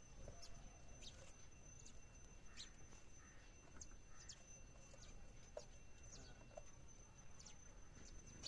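House sparrows chirping faintly: short, sharp chirps scattered irregularly, about one or two a second.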